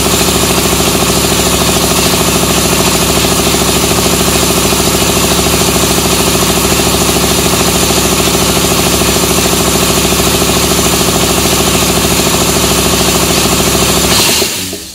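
Gihon 2.2 kW portable air compressor running steadily and loudly, about 93 dB on a sound level meter held close to it. It cuts out near the end, the noise dying away over about a second.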